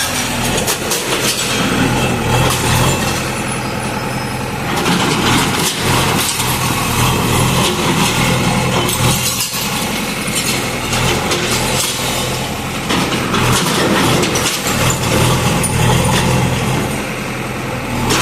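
Heavy diesel demolition machine running under load, its engine humming steadily beneath repeated clanks and knocks.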